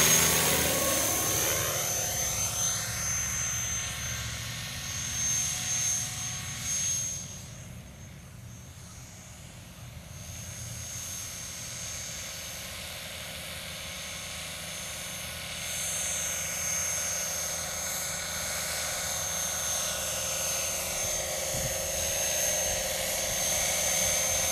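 Radio-controlled scale MD500D model helicopter flying, with rotor chop and a steady high motor whine. It drops in pitch as it passes overhead, fades as it flies off, and grows louder again from about two-thirds of the way in as it comes back low and close.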